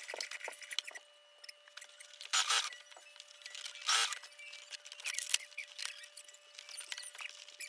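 Fabric rustling and being shifted at a sewing machine, in irregular bursts, the loudest about two and a half and four seconds in, with a few light clicks over a faint steady hum.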